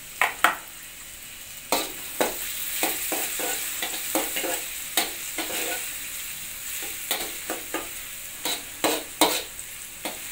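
Minced garlic sizzling in oil in a wok over a low flame. Through it come irregular knocks and scrapes as the spatula scrapes garlic off a plastic box into the wok and stirs it against the pan.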